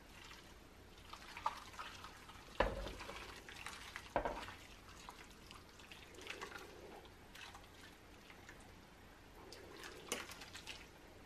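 Gravy being poured from a saucepan over beef patties in a metal baking pan: faint liquid pouring and splattering, with a few soft knocks, the clearest about two and a half and four seconds in.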